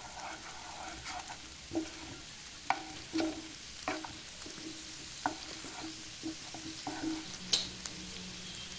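A wooden spatula stirring and tossing chicken pieces through a thick sauce in a frying pan, with irregular knocks and scrapes against the pan, a sharper one near the end, over a faint steady sizzle.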